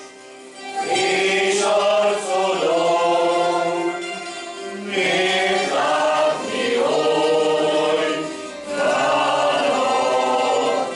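A folk group singing in chorus, in three phrases of about four seconds each with a short break before each, accompanied by citeras (Hungarian table zithers).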